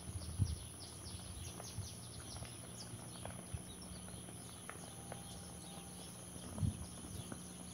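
Quiet lakeside ambience: many short, quick, falling high chirps over a steady very high tone and a faint low hum, with a soft thump about half a second in and another near the end.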